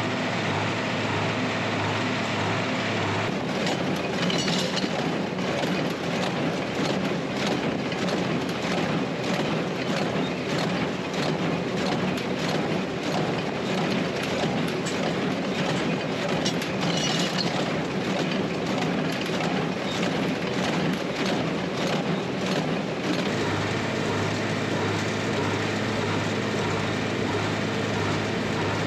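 Tractor pulling a small square baler: the engine runs steadily while the baler's plunger clacks in a fast, even rhythm from about three seconds in until about five seconds before the end, with two brief high squeaks along the way.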